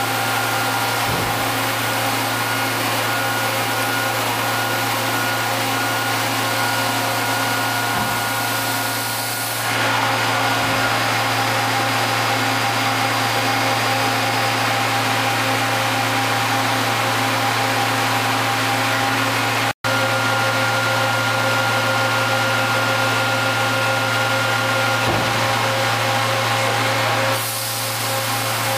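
1993 Niigata HN100B horizontal machining center running, a steady hum with several steady whining tones. A loud hiss joins about a third of the way in and stops shortly before the end.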